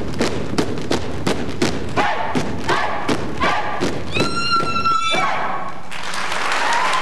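Folk dancers' feet stamping on a wooden stage in a steady rhythm, about three stamps a second, with short shouts from the dancers joining in and one call held for about a second near the end of the stamping. Audience applause breaks out about six seconds in.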